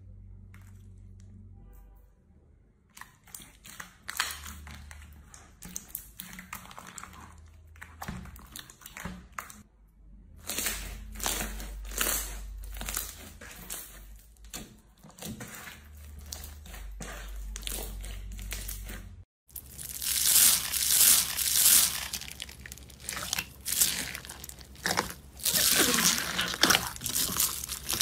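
Hands pressing and stretching clear slime packed with pearl beads, a sticky crackling and popping. After a brief break about two-thirds of the way in, a louder, denser crackling follows from another slime being squeezed.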